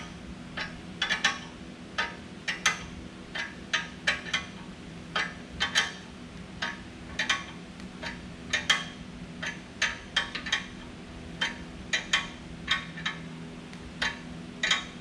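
Ratchet wrench clicking in short strokes as it cranks the screw of a hydraulic ball joint separator, loading the tool against the ball joint of a BMW X5 front lower control arm. A steady low hum runs underneath.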